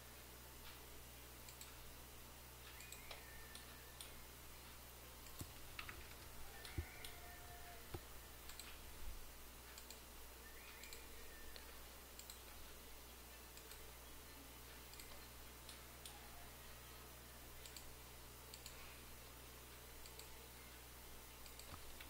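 Near silence with faint, scattered clicks of a computer mouse over a low, steady hum.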